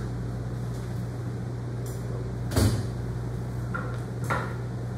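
Two knocks from the metal parts of a saw-filing machine being set up by hand, a sharp one about halfway through and a lighter one near the end, over a steady low hum.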